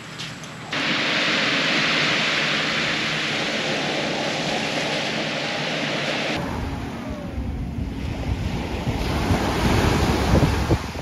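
Waves washing onto the beach, a steady hiss of surf. About six seconds in it changes abruptly to wind buffeting the microphone, a low rumble over the fainter surf.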